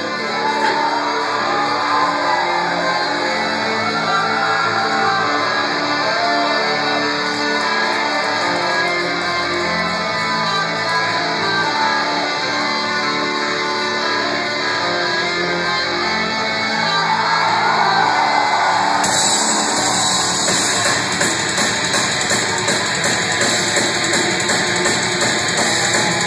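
Live metalcore band playing loud distorted guitar music, held chords ringing over the first part. About two-thirds of the way through the sound changes suddenly to denser full-band playing with bright, rapid cymbal hits.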